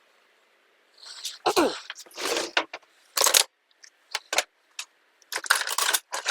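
Small metal carburettor parts and hand tools clinking and clattering on a workbench as the carburettor is taken apart, in a run of short, sharp, irregular clinks starting about a second in.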